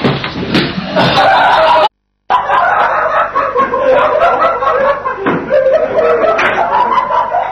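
A classroom full of students laughing and shouting over one another in an uproar, with a few sharp knocks and bangs in the first two seconds. The sound cuts out for a moment about two seconds in.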